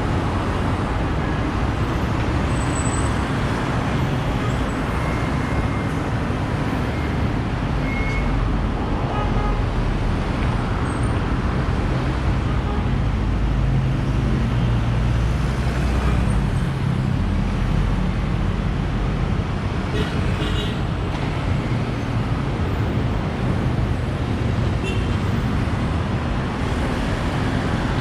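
Steady city road traffic: engines of passing vehicles and tyre noise blend into a constant rumble. A heavier low rumble swells for a few seconds around the middle as a big vehicle goes by.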